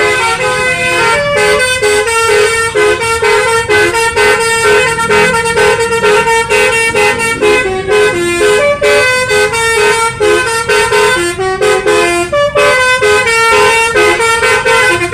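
Basuri (telolet) multi-tone electric bus horn playing a tune of short notes that step quickly up and down without a break.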